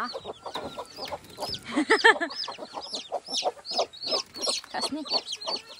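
Domestic chicks peeping rapidly and continuously, many short high cheeps overlapping, as they are lifted by hand out of their nesting basket. About two seconds in comes one louder, lower chicken call.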